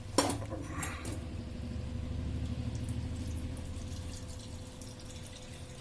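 Cooking oil being poured off the cooked chicken through a filter, a steady low pouring sound that swells and then tapers away. There is a short metallic click just after the start.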